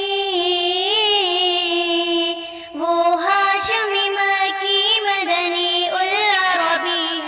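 A naat sung by a single high voice, drawing out long, ornamented notes, with a short breath between phrases a little under three seconds in.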